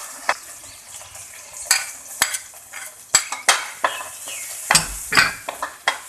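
Onion and garlic sizzling in a little oil in a pan while being stirred, a utensil scraping and knocking against the pan in irregular strokes. The loudest knock comes a little after five seconds in.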